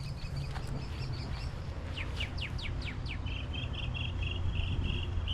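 A songbird singing: a few high notes, then about six quick downslurred whistles, then a fast, even run of short notes, over a steady low outdoor rumble.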